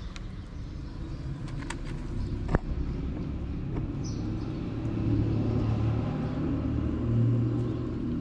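A car engine's low rumble from street traffic, swelling about halfway through and peaking near the end as the vehicle passes. A single sharp click sounds about two and a half seconds in.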